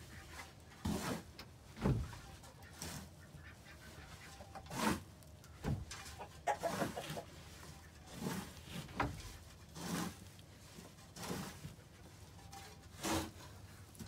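Scooping and scraping dry straw-and-manure chicken coop bedding by hand, in irregular strokes about every second, with bedding rustling as it is tossed. Chickens cluck now and then among the strokes.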